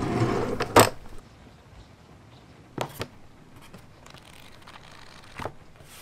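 A noisy swell fades out in the first second and ends in a sharp knock as a drawer is pulled open. A few soft taps and clicks follow as a notebook is taken out, set down and its pages turned.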